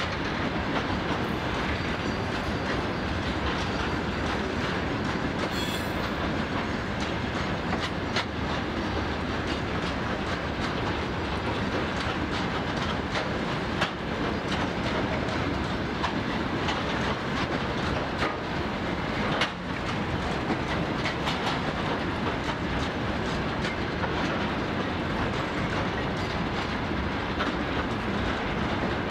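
Freight train of covered hopper wagons rolling past at a steady speed: even wheel-on-rail noise with the clickety-clack of wheels over rail joints, and one sharper click about two-thirds of the way through.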